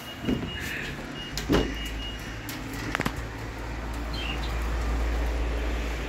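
Low steady rumble that builds over a few seconds, with a few sharp clicks, including a double click about halfway through.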